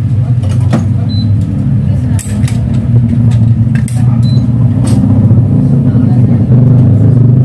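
Badminton racket being strung with Ultimax string on a stringing machine: about six sharp clicks and snaps of the string and clamps, over a loud steady low rumble.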